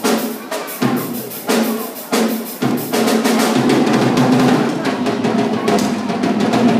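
Drum kit played solo: a handful of separate hits roughly every half second to second, then from about three seconds in a fast, unbroken run of drum and cymbal strokes.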